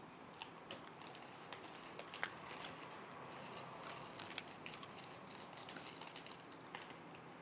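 Faint scattered clicks and rustles from a small dog stirring and moving her mouth on a quilted bedspread, with a louder double click about two seconds in.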